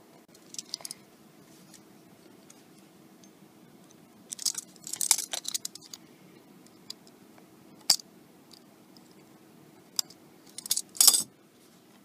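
A pry tool clicking and scraping against the flex cable, tape and metal frame inside an opened iPad 2. There is a cluster of crackly scraping about four seconds in, single sharp clicks after it, and a louder burst near the end, over a faint steady hum.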